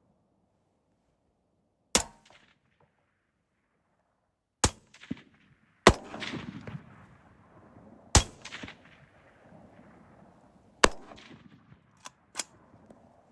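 Rifle shots: five loud reports fired one to three seconds apart, the middle ones followed by a long rolling echo, with a few fainter cracks in between and near the end.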